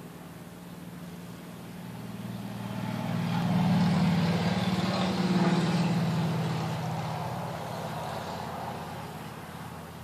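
A motor vehicle driving past, its sound swelling to a peak about four to six seconds in and then fading away, over a steady low hum.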